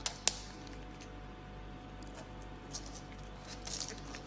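Light clicks and taps from a piglet snapping at a dangled ribbon and stepping on a wooden floor, over a faint steady hum. A sharp click about a quarter second in is the loudest, and a small flurry of taps comes near the end.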